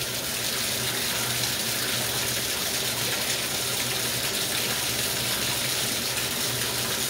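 Bathtub faucet running steadily at high flow into the tub. The water goes straight down the freshly snaked, now clear drain.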